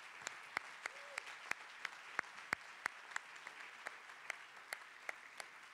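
Audience applauding: a steady patter of clapping with individual louder claps standing out.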